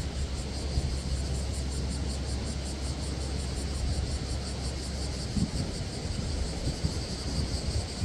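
Seaside summer ambience: wind rumbling on the microphone over a steady wash of surf, with a high, evenly pulsing insect chorus on top. A few stronger gusts of wind come in about five seconds in.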